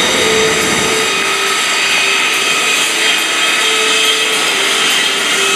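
Aero L-39 Albatros jet engines running at taxi power as the jets roll past on the ground: a steady high-pitched turbine whine, several tones together, over a loud rushing hiss.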